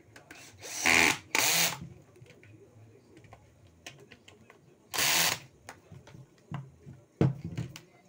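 Cordless drill/screwdriver run in three short bursts, each spinning up briefly: two about a second in and one about five seconds in. This is screws being driven in to fasten a pedestal fan's base. Light clicks and knocks of handling come between the bursts.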